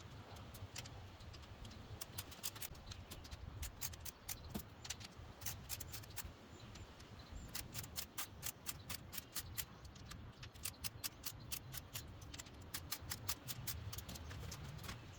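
Tool clicking rapidly while bolts on patio furniture are tightened during assembly. The clicks come in runs of a few seconds, several a second, with short pauses between runs, over a low steady rumble.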